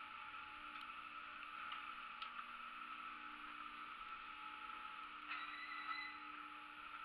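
Steady mechanical hum of a detachable chairlift station's machinery, with a brief high squeal about five seconds in.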